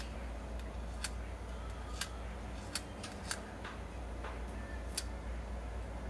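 Sharp, short clicks at irregular intervals, about six in all, over a steady low hum.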